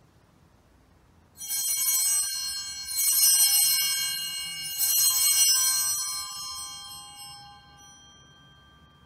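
Altar bells (Sanctus bells) rung three times during the elevation of the host at the consecration: three ringing peals about a second and a half apart, each fading, dying away a few seconds later.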